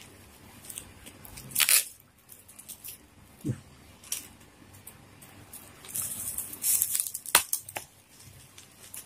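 A small knife slitting open a plastic bubble-wrap mailer, the plastic crinkling and tearing in short bursts, most densely near the end, with one sharp click.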